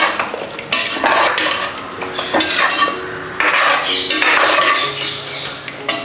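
Metal spoon stirring thick paneer butter masala gravy in a stainless steel pot, scraping and clinking against the steel in repeated strokes about once a second.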